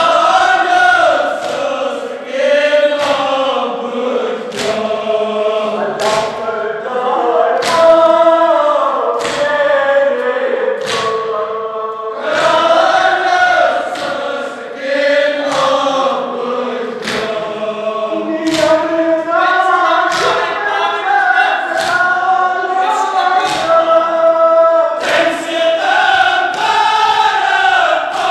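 A crowd chanting a Kashmiri nauha (Shia lament) in chorus. Sharp chest-beating strokes of matam fall in time with it, about one every second and a half.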